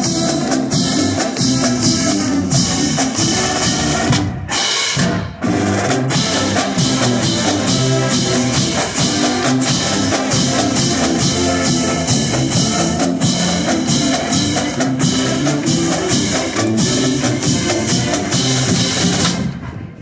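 Marching band playing: sousaphones and brass over a drumline of snare and bass drums beating a steady pulse. It drops out in two short breaks about four and five seconds in and stops sharply just before the end.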